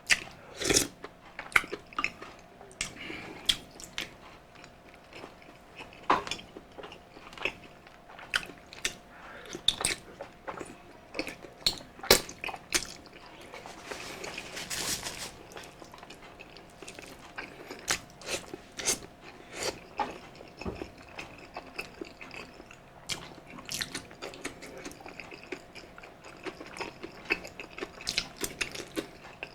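Close-miked eating of balbacua beef stew: wet chewing and lip-smacking with many short, irregular sharp clicks.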